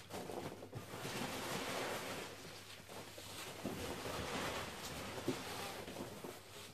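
Continuous rustling and shuffling of polystyrene packing peanuts as hands dig through them in a large parcel.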